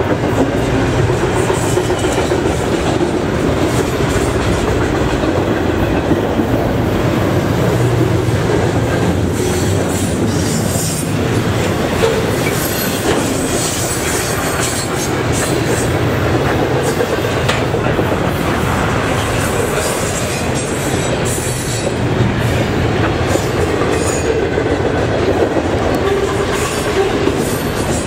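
Double-stack container well cars of a freight train rolling past close by: a loud, steady rumble of steel wheels on rail, broken by scattered clicks.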